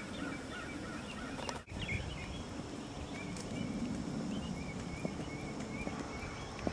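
Muffled hoofbeats of a barefoot Tennessee Walking Horse gaiting on grass, under birds chirping in short repeated notes. The sound drops out briefly about a second and a half in.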